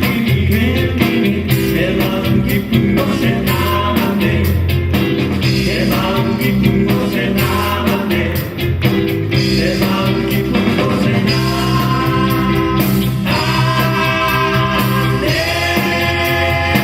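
Live rock band playing a song with singing, over drums, bass, electric guitar and keyboard.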